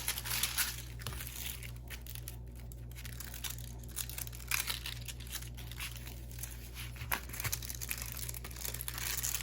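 Plastic packaging and film crinkling as a diamond painting canvas is handled, with small scattered rustles and light ticks.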